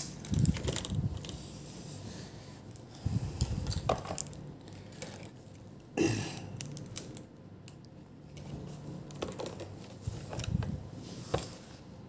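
HP EliteBook 8440p laptop motherboard being handled and turned over on a work mat: scattered light clicks and knocks from the board and its metal hinge bar, with a few soft thumps; the sharpest clicks come about four and six seconds in.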